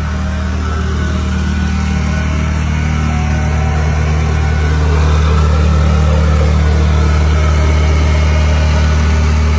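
An engine running steadily with a deep, even hum, growing a little louder about halfway through.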